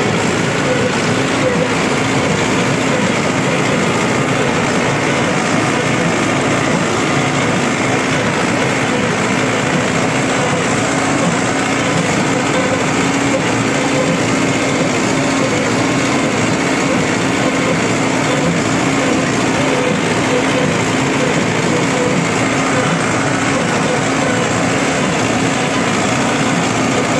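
Mahindra Arjun Ultra-1 605 DI tractor's four-cylinder diesel engine running close by at a steady speed, a loud, even drone that does not change.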